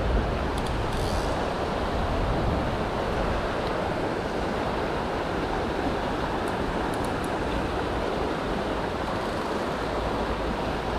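Steady rush of a river's flowing current, with low wind rumble on the microphone in the first few seconds.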